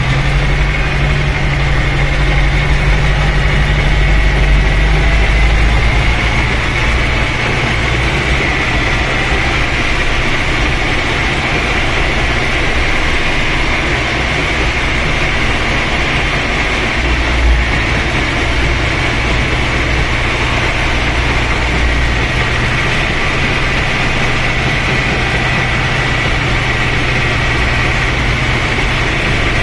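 Ursus C-360 tractor's four-cylinder diesel engine running steadily while driving, heard from inside the cab, with a steady high whine over the engine drone. The engine note drops a little about six seconds in.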